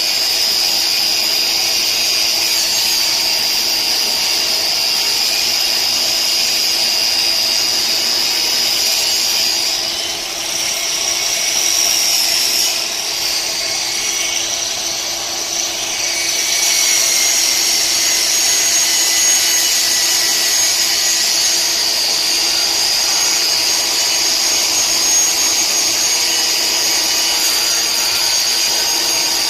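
A power tool running steadily with a high whine over a noisy hiss. It eases off briefly about ten seconds in, then comes back with the whine a little higher.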